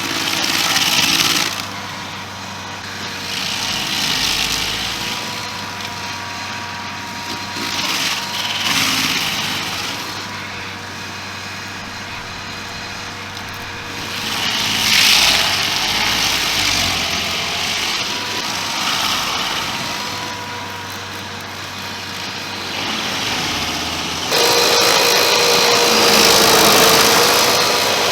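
Remote-control stump grinder running, its small engine holding a steady note while the cutter wheel chews into the wood in repeated bursts of grinding. The longest and loudest grinding starts about three-quarters of the way through.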